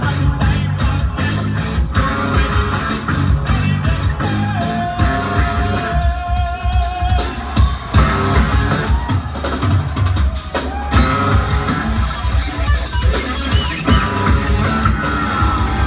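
A live rock band plays an instrumental passage of heavy bass and drums with electric guitar. A single high note is held for about three seconds near the middle.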